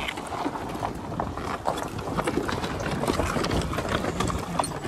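Mahindra TUV300 driving over a rocky dirt track: its tyres crunch and crack over loose stones in many short clicks, over the low rumble of its diesel engine and the road.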